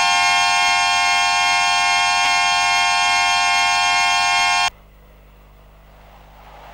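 A loud sustained electronic tone, one unwavering chord rich in overtones, held for about four and a half seconds and then cut off suddenly, leaving a faint hiss that swells slightly near the end.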